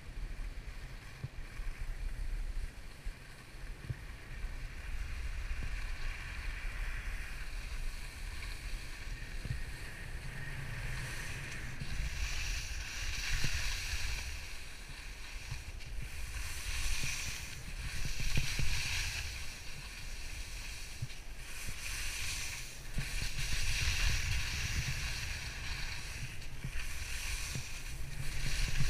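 Skis hissing and scraping across snow through a run of turns, each turn a swell of hiss, over wind rumbling on the camera's microphone.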